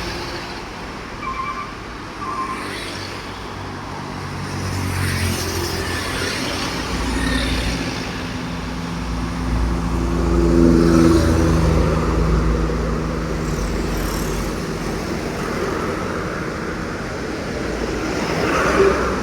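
Heavy truck's diesel engine drawing near and passing on the road amid traffic, its drone loudest around the middle and easing afterwards. Two short high beeps sound near the start.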